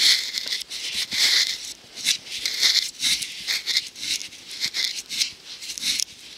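Handling noise right at a camcorder's built-in microphone: the lens being rubbed and wiped by hand, in repeated scratchy strokes about two or three a second, to clear a fogged lens.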